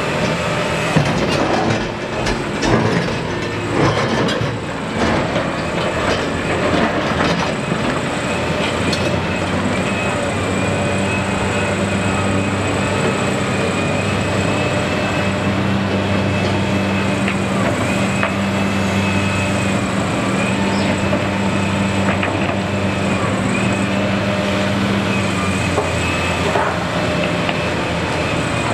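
Liebherr R976 hydraulic crawler excavator working: its diesel engine runs under load with a thin steady whine over it, while the bucket knocks and clatters through rock for the first several seconds. Then a steadier engine drone follows as the loaded bucket is swung over the truck to dump.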